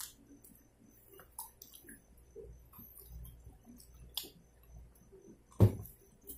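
Quiet eating sounds: scattered small clicks and mouth noises of French fries being chewed, with one sharp knock about five and a half seconds in.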